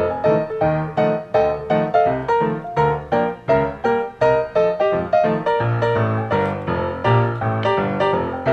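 Background piano music, an even run of notes at about three a second.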